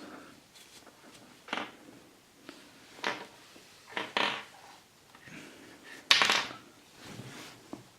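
A folded tissue rubbing and rustling against a charging cable and its adapter as the dirt is wiped off: a few short, scattered rustles, the loudest about six seconds in.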